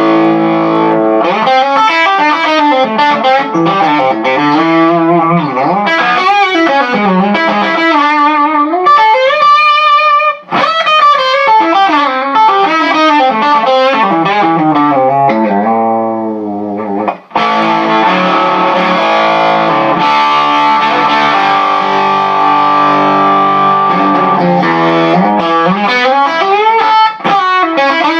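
Electric guitar with a hum-cancelling P90 pickup (Alnico 5 magnets) played through a Dr. Z amp head. It plays lead lines with string bends and vibrato, a high bent note held with wide vibrato about ten seconds in, then long ringing chords.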